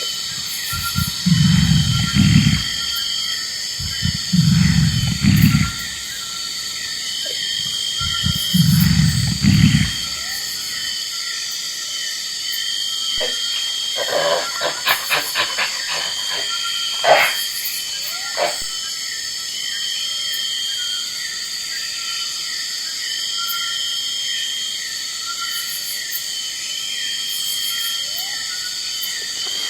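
Three low, rough calls from a large animal, each about a second and a half long, in the first ten seconds, over a steady background of insects chirping in a repeating pattern; a few sharp clicks come in around the middle.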